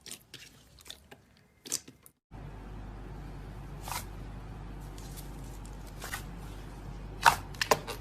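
Crunchy slime being handled: fine crackling for about two seconds, then, after a cut to a recording with a steady low hum, a few scattered sharp pops, bunched together near the end.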